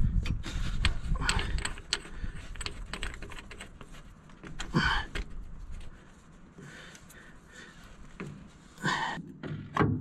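Small metallic clicks and rattles as a hydraulic hose's steel fitting is threaded by hand onto a hydraulic pump port, with a couple of short, heavy breaths, one about halfway and one near the end.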